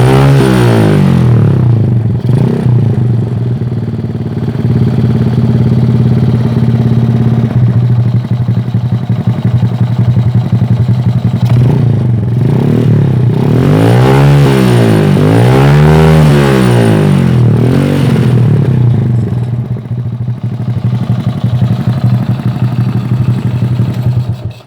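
Honda Supra Fit 100cc motorcycle engine, stock internals, running loud through an aftermarket Akrapovic racing exhaust. A rev falls back to idle at the start, it idles steadily, then gets two quick throttle blips in a row about two-thirds of the way through and a smaller one just after.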